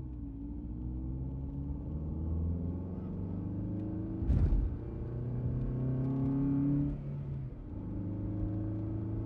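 Car engine running under acceleration, its pitch drifting up and then falling away near the end as it changes gear, with a short thump a little over four seconds in.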